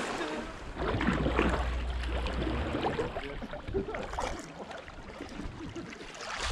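Water rippling and splashing around the bow of a kayak as it is paddled down a shallow, riffly creek. A low rumble, likely wind, sits under it for a couple of seconds about a second in.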